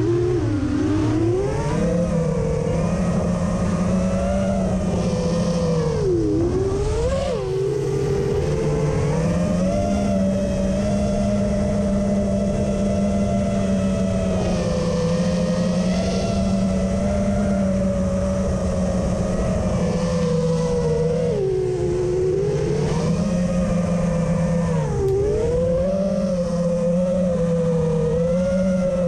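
FPV racing quadcopter's brushless motors and propellers whining, heard from the onboard camera, the pitch dipping and climbing again several times as the throttle changes.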